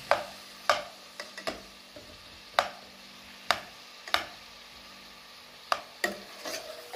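A metal spoon stirs boiled carrot slices in butter in a pot, knocking sharply against the pot's side about eight times at uneven intervals. Faint frying sizzle runs underneath.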